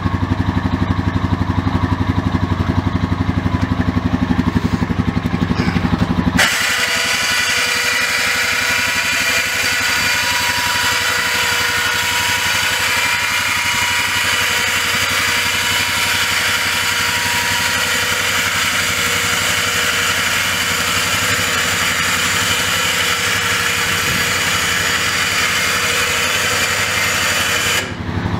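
A 2011 Honda Rancher ATV's single-cylinder engine idles. About six seconds in, the sound switches abruptly to the Badlands 2500 lb electric winch running: a steady motor whine with gear noise as it pulls on its cable. The winch stops suddenly near the end.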